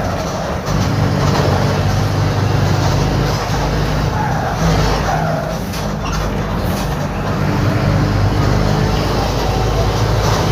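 Mercedes-Benz OF-1721 bus diesel engine running steadily, its exhaust leaking through a hole in the pipe.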